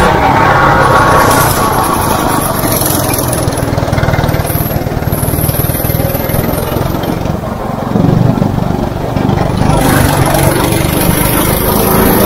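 Go-kart's small engine running hard as the kart drives around the track, heard from the driver's seat. The engine eases off briefly and picks up again about eight seconds in.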